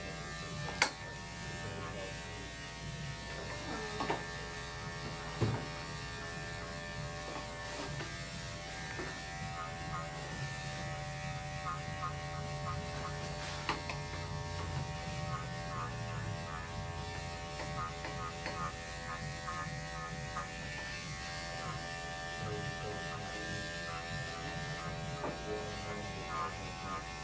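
Electric pet grooming clippers running with a steady hum while clipping a cat's coat, with a few short clicks along the way.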